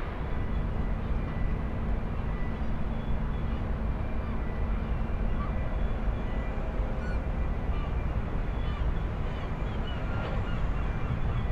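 Port ambience: a steady low rumble with a steady engine hum through the first half, typical of a docked ship's diesels running. Faint bird calls come through now and then in the second half.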